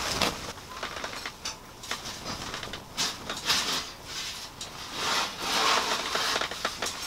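Clicks, knocks and scraping of a black perforated-steel Coleman folding camp table being handled as its side panel is swung out, with two longer rushing scrapes, one about halfway through and one near the end.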